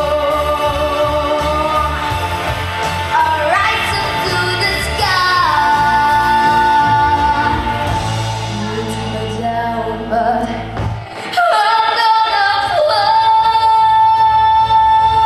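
A female solo voice sings a pop song over a backing track, holding two long notes. The bass drops out briefly about two-thirds of the way through.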